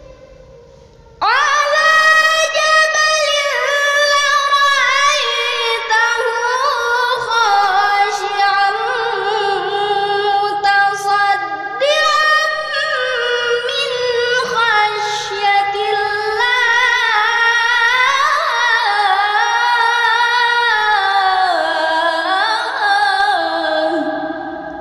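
A girl's solo voice reciting the Qur'an in melodic tilawah style, one long ornamented phrase whose pitch winds up and down. It starts about a second in and fades near the end.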